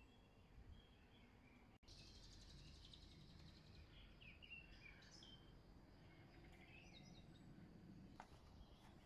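Faint woodland ambience with small birds chirping now and then. About two seconds in, the sound drops out for an instant and comes back with a slightly louder background hiss.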